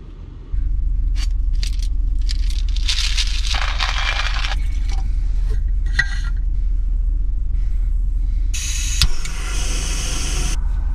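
Low steady hum of the pickup's idling engine heard inside the cab, under handling sounds: scraping as a Jetboil stove is threaded onto a gas canister, a sharp click about six seconds in, and a rustling pour into an AeroPress near the end.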